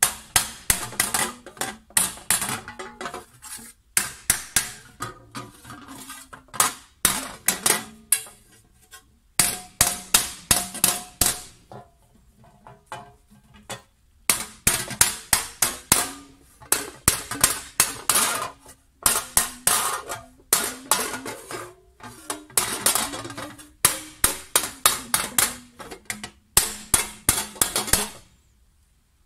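Hand hammer striking a copper tray in quick runs of sharp metallic blows, about five a second, with short pauses between runs and a longer lull about halfway through. The copper rings briefly after the blows. This is the hammering that raises the tray into shape.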